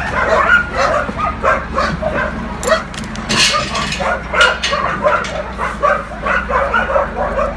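Several shelter dogs barking and yipping at once, a dense jumble of short overlapping barks and yips. A brief rustling noise cuts in about three seconds in.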